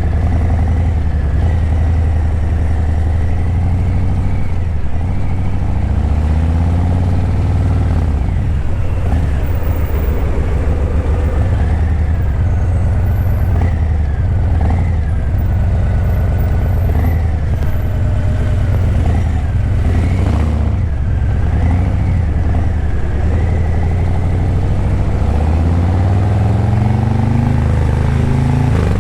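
Harley-Davidson Breakout 117's Milwaukee-Eight 117 V-twin running through a Vance & Hines Eliminator 300 slip-on exhaust while riding in traffic. Its pitch climbs as it accelerates about six seconds in and again near the end.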